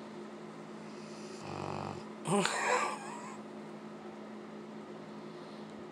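A sleeping dog snoring: one buzzing snore about one and a half seconds in, followed by a louder, noisier breath, with a steady hum underneath.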